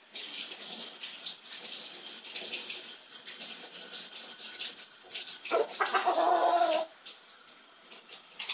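A Silver Spangled Appenzeller Spitzhauben rooster crows once, about five and a half seconds in, a single call of just over a second. Before the crow comes a crisp, crackly rustling with many small clicks as it pecks and tears at lettuce.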